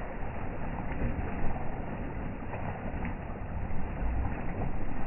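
Irrigation water gushing up out of an underground pipe outlet, a steady rushing and splashing with a low rumble.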